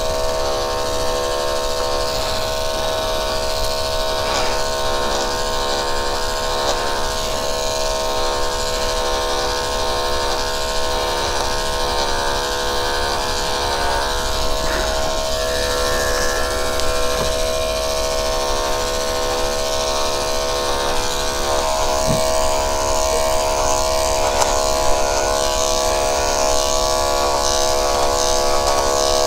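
Corded electric dog clippers running with a steady buzz while shaving down a Bichon Frise's matted coat close to the skin.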